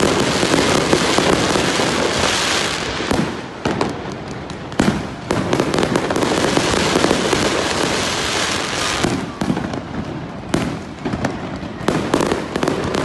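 Aerial fireworks bursting overhead in quick succession: a dense, continuous crackle of many rapid pops, with a sharp bang about five seconds in and another after ten seconds.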